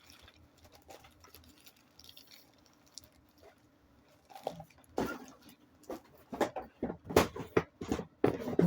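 Objects being handled and set down during unboxing: faint scattered ticks at first, then from about halfway a quick irregular run of knocks and clicks.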